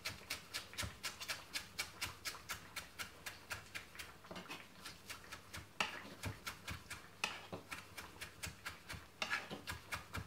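Knife chopping flat-leaf parsley on a cutting board: a steady run of quick strokes, about four a second.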